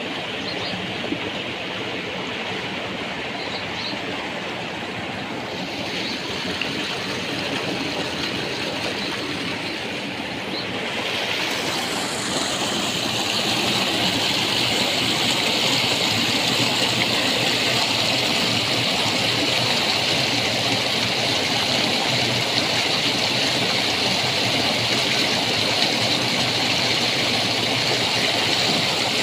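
Water rushing along concrete irrigation channels, then, about twelve seconds in, a louder, hissier rush of water gushing out and splashing over concrete into an outlet basin.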